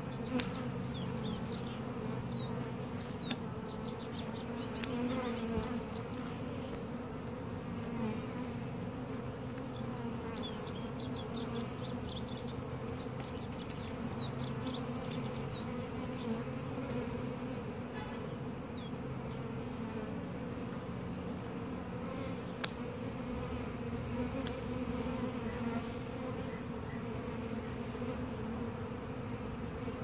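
A swarm of honey bees buzzing close by as a steady, even hum while the bees are hived into a nuc box.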